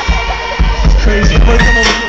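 Live band playing a pop-rock song through a PA, heard from the audience.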